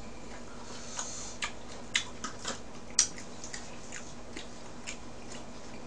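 Eating sounds as a lettuce-wrapped mouthful of raw mullet sashimi is taken and chewed: scattered short sharp clicks from mouth and chopsticks, the loudest about three seconds in, over a faint low hum.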